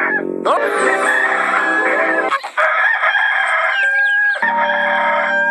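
Rooster crowing, the Hollywood Edge stock rooster sound effect, with music underneath.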